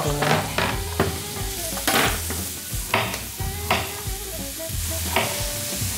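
Chopped onions and carrots sizzling in oil in a frying pan while being stirred, with irregular knocks and scrapes of the utensil against the pan.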